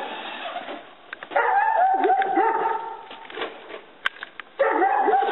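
Cat yowling: two long, wavering cries, the first about a second and a half in, the second starting near the end, with a few faint clicks in the gap between them.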